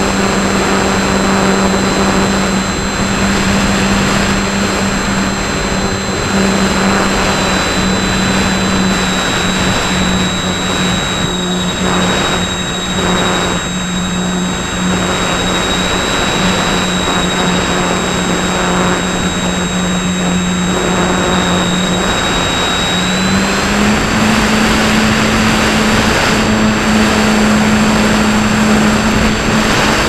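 Electric motor and propeller of a Pelikan Gama 2100 electric motor glider running under power in flight, heard from a camera mounted on the model: a steady hum with a thin high whine above it, over loud wind rush. The pitch steps up slightly about three quarters of the way through.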